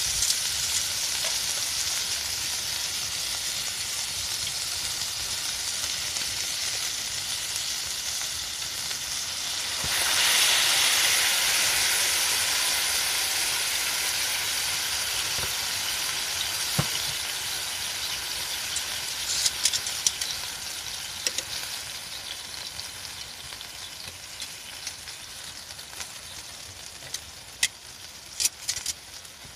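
Food sizzling in a hot pan: a steady frying hiss that swells sharply about ten seconds in, then slowly dies down, with a few sharp pops near the end.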